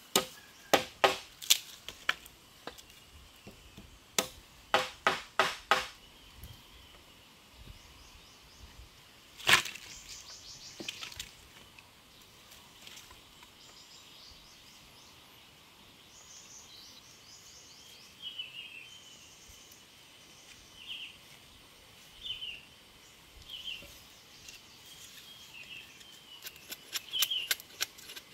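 Blows on wood in quick bursts of about five strikes, a single louder crack about ten seconds in, and a faster run of knocks near the end, like wood being chopped or struck for shelter building. Faint high chirps come and go in the quieter middle.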